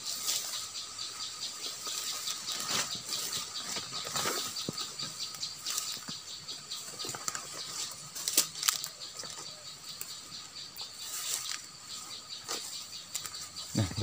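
Footsteps brushing and crunching through leafy undergrowth, with a parent prenjak's rapid 'chek-chek-chek' chatter going on behind. To the searcher this call from a parent bird means a nest is close by. The loudest brush of foliage comes just past halfway.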